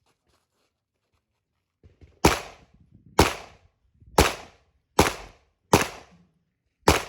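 Pistol shots fired one at a time during a USPSA stage run: after about two seconds of quiet, six single shots come roughly a second apart, each a sharp crack with a short echo.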